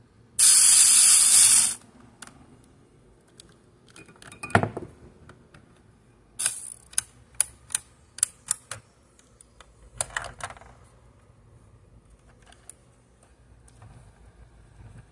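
Plastic toy rescue helicopter's winch being worked by hand. There is a loud, hissy rush lasting over a second near the start, then scattered plastic clicks and a quick run of about seven ratchet clicks as the stretcher is reeled up.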